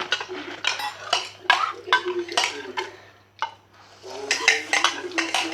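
Spoons and forks clinking and scraping against bowls in quick, irregular strikes as instant noodles are eaten.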